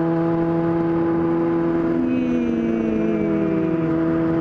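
Yamaha R6 inline four-cylinder sport-bike engine running at a steady cruising speed, its pitch holding level. About halfway through, a fainter second engine tone glides slowly down in pitch for a couple of seconds.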